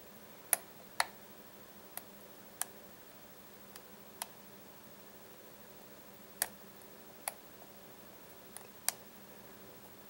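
Baldwin pin-tumbler lock cylinder being picked with a pick and tension wrench: about ten sharp, irregularly spaced clicks as the pins are lifted and set.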